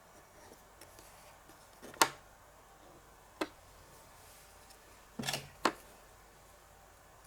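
Small plastic clicks and taps of miniature toy kitchenware being handled: a sharp tap about two seconds in, another near the middle, then a quick cluster and a last tap a little later.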